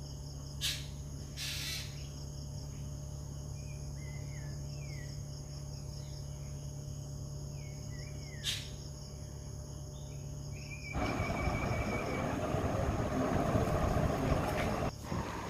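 Steady background hum and a high steady whine, with a few short chirps and clicks. About eleven seconds in, a louder rushing noise takes over abruptly.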